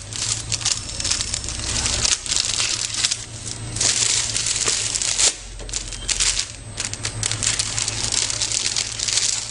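Plastic shrink film crinkling and rustling irregularly as it is handled, the cut-off excess being pulled away from the sealed wrap.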